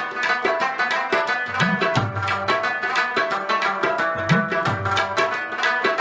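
Background music: a fast, steady drum rhythm with deep drum strokes that slide up in pitch about every two and a half seconds, over a sustained melodic line.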